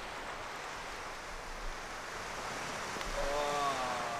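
Steady wash of sea surf on a shore. A faint, wavering tone that falls slightly in pitch comes in about three seconds in.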